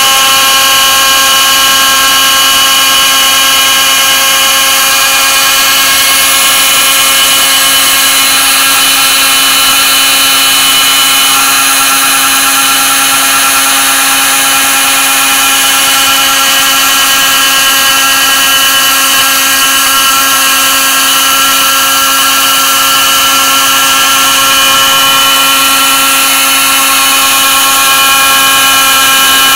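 Proxxon MF 70 mini milling machine's spindle motor running at a steady speed with a constant whine, its small end mill cutting through the thin aluminium wall of a beer can.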